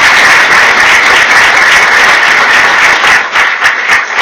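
Audience applauding. A dense, steady wash of clapping becomes more broken into separate claps near the end.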